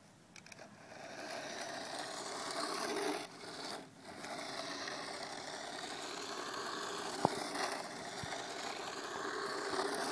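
Radio-controlled toy car driving along the road, its small motor whirring. It starts about half a second in, drops out briefly between three and four seconds in, then runs on steadily. A single sharp click about seven seconds in is the loudest moment.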